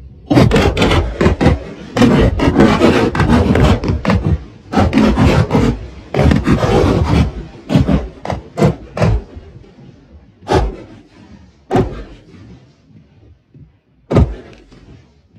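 Sutli bomb firecrackers exploding in and around a toilet: a dense, rapid string of loud bangs for about seven seconds, then single bangs thinning out, a second or more apart, the last near the end.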